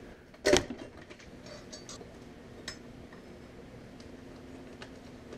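One sharp metallic clank about half a second in, then scattered light clicks and ticks of hand tools and small metal parts as solenoids and cooler feed tubes are taken off a Honda automatic transmission case.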